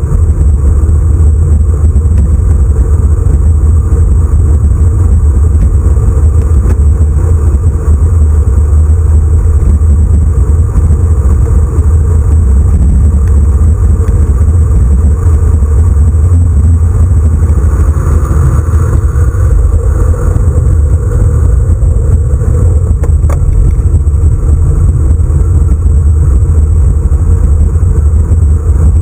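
Loud, steady wind rumble over the microphone of a handlebar-mounted camera on a road bike descending at speed.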